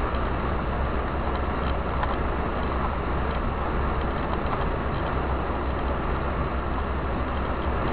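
Steady road and engine noise of a car cruising at highway speed, heard from inside the car through a dashcam microphone: a constant low rumble under an even hiss.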